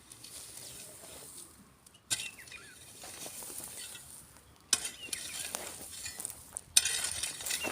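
Rustling and scraping from yard cleanup work, in short clips that change abruptly about two, four and a half, and seven seconds in.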